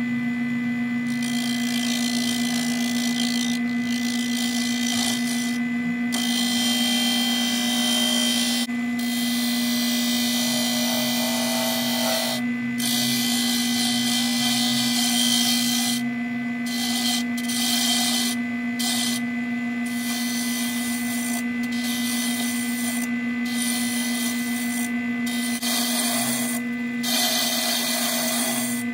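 Wood lathe running with a steady motor hum while a hand-held tool works the spinning wood blank, giving a rough scraping noise that breaks off for short moments as the tool lifts away.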